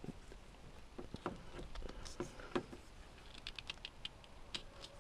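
Faint, irregular light clicks and ticks from a wire stripper and wire being handled as an electrical wire's end is stripped and readied for connection, with a quick run of ticks about three and a half seconds in.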